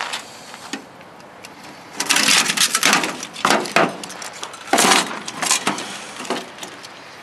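Metal parts of a dismantled radio clattering and scraping as they are handled and pulled apart, with several loud clanks in the middle.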